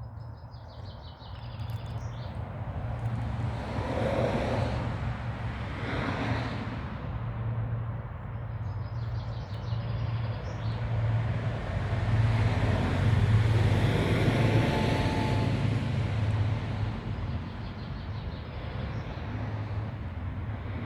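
Road traffic passing: two long swelling-and-fading rushes of vehicle noise over a steady low hum, with faint bird chirps near the start and again about ten seconds in.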